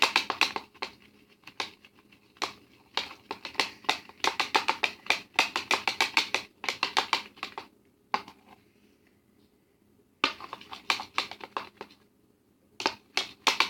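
A mixing utensil clicking and tapping against a bowl in quick repeated strokes while shower gel and shampoo are stirred into a thickening gel, with a pause of about two seconds a little past halfway and a shorter one near the end.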